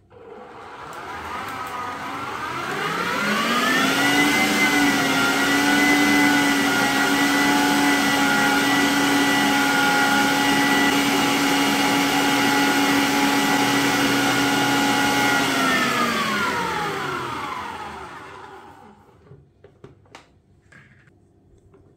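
Electric stand mixer with a wire whisk whipping a labneh, egg-yolk and kaymak cream. The motor speeds up over the first few seconds, runs steadily, then winds down and stops about three-quarters of the way through. It is switched off as the cream stiffens, so that it does not split. A few faint knocks follow.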